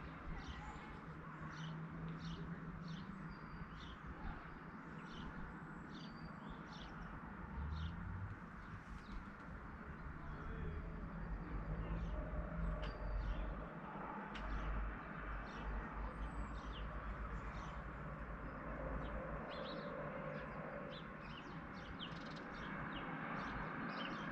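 Small birds chirping, many short high chirps in quick succession, over a low rumble.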